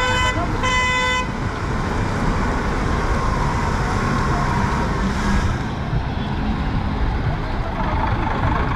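Car horn honking: a held blast that stops just after the start, then a second short blast of about half a second. After that, steady city street traffic noise.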